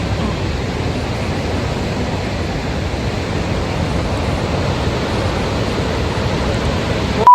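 Steady rushing roar of Barachukki waterfall heard close up, falling water hitting rock and pool. A steady high beep cuts in at the very end.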